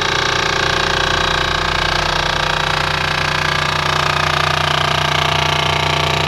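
Air-conditioner compressor running with a loud, steady mechanical hum made of many constant tones: an abnormal, obnoxiously loud noise from the unit.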